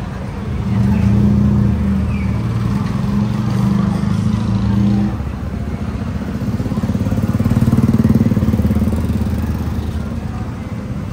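Motor vehicle engines in street traffic, passing close by with a steady low hum. It swells twice: from about a second in to about five seconds, and again from about six to ten seconds.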